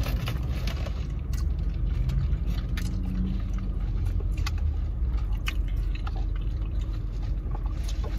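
Low steady hum of an idling car heard inside the cabin, with chewing, sips through a drinking straw and scattered small clicks of food and packaging.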